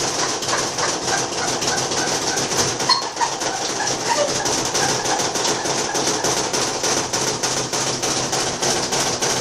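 LG washing machine on a spin cycle, its drum thrown off balance so the whole cabinet shakes and knocks with a fast, continuous rattling over the hum of the spin. The machine is jumping and walking about on the floor.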